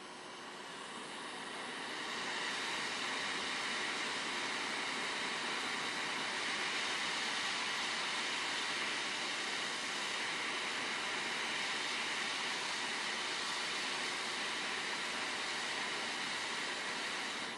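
JBC hot air rework station blowing a steady hiss of hot air from its nozzle, swelling over the first two seconds and then holding level, as it heats a plastic FPC connector on a phone board to melt its solder for removal.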